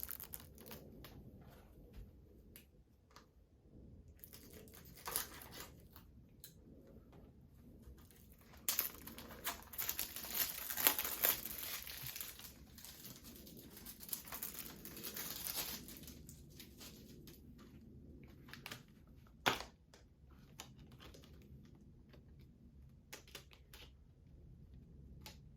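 Plastic shrink wrap being torn and crinkled off a Blu-ray case, with scattered clicks and taps of handling. The tearing and crinkling is densest over several seconds near the middle, and a single sharp click comes a few seconds after it.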